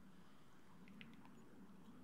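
Near silence: faint room tone with a low hum and a few soft ticks about a second in.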